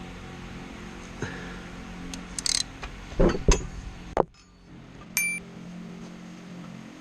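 Metal hand tools clinking and knocking as they are handled: a few sharp knocks about halfway through and a short metallic ring a little later, over a steady low hum.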